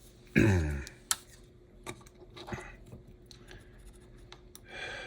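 Small clicks and scratches of tiny parts and a tool being handled while reassembling an HO scale slot car chassis, with a short grunt that falls in pitch about half a second in and a breath near the end.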